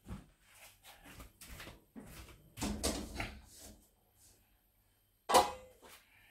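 Kitchen handling noises as a frying pan is lifted off a stainless steel counter and moved away: scattered knocks and light clatter, a busier patch around three seconds in, and one sharp knock about five seconds in.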